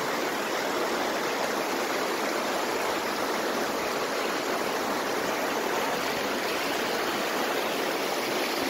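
Steady rush of a rocky river's flowing water, an even hiss with no breaks.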